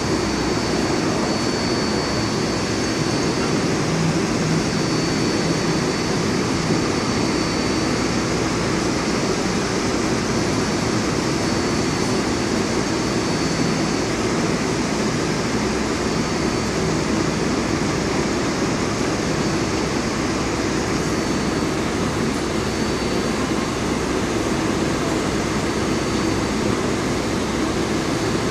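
R142A subway train standing in the station with its doors open: a steady hum and hiss from its air-conditioning and onboard equipment, with a faint high whine over it for most of the time.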